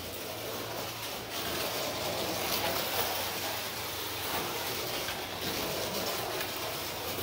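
Carrera racing truck slot car lapping a plastic slot-car track: a steady whirring rumble of its small electric motor and its wheels and guide running in the slot.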